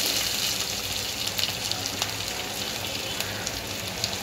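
Chopped onions sizzling in hot oil in a kadhai with crackled cumin and mustard seeds: a steady hiss with scattered crackles, loudest at the start and easing slightly as the onions settle into the oil.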